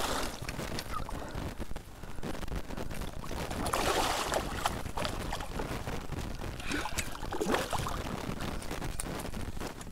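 Hooked red drum thrashing and splashing at the surface close beside a kayak, in bursts near the start, about four seconds in and again around seven seconds, with water sloshing in between.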